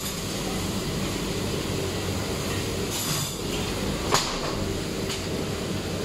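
Pre-rinse spray valve spraying water over a rack of stainless cutlery, over the steady hum of a running commercial dishwasher. One sharp metal clank comes about four seconds in.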